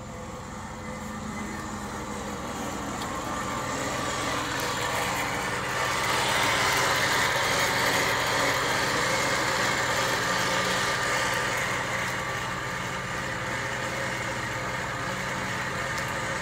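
A Slowin electric winch on a Jeep Grand Cherokee's front bumper runs, winding in its synthetic rope, over the Jeep's engine idling steadily. The winch sound grows louder over the first several seconds, then holds.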